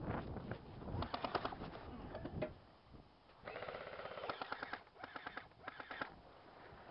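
Airsoft electric guns (AEGs) firing several rapid bursts, with short pauses between strings of shots. The longest burst, about halfway through, carries the whine of the gearbox motor under the clatter of shots.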